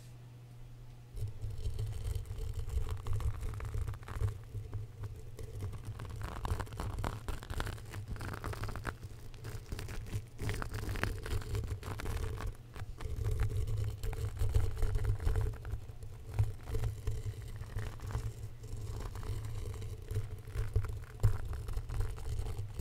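Small twisted-wire bristle brush rubbed and scratched against a foam-covered microphone, giving a dense crackly scratching with a heavy low rumble. It starts about a second in and goes on in uneven strokes.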